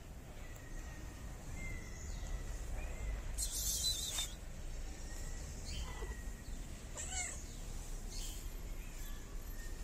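A street cat meowing, short calls around the middle and a little later, with a brief burst of noise about three seconds in, over a low steady background rumble.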